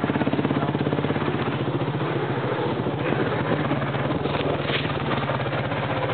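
Motorcycle engine running steadily as the bike is ridden, a rapid even pulsing with no break.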